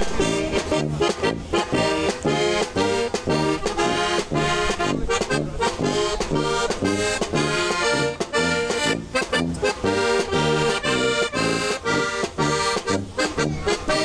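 Folk band music led by an accordion, with brass horns and a snare drum, playing a tune with a steady beat.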